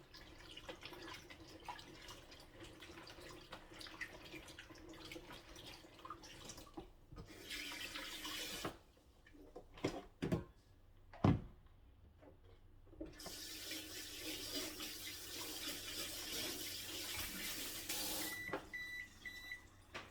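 Kitchen sink tap running, briefly and then for several seconds, as potatoes are rinsed, with a few sharp knocks between. Near the end, an oven gives a quick series of short high beeps: its preheat-done signal.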